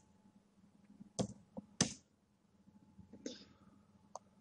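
A few separate keystrokes on a computer keyboard, with three close together near the middle and a light tick near the end.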